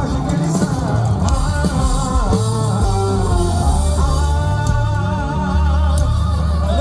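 Live gospel band playing in rock style, with heavy bass and a sung melody; from about four seconds in, a long wavering note is held.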